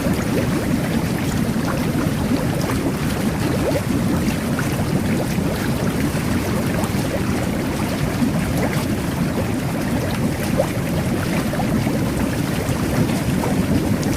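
Whirlpool jet bath running: underwater jets churning the water in a steady, dense bubbling, with many small bubble pops throughout.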